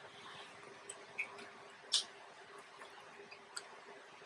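Faint close-mic eating sounds of spaghetti with meat sauce: quiet chewing with a few small wet clicks, the sharpest about two seconds in.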